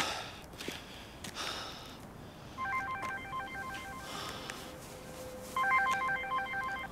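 Mobile phone ringtone: a rapid pattern of electronic beeping tones that plays twice, from about two and a half seconds in and again from about five and a half seconds in.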